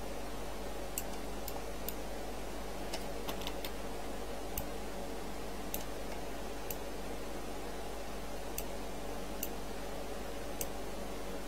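Computer mouse clicking about a dozen times, faint sharp clicks at uneven intervals, over a steady low electrical hum.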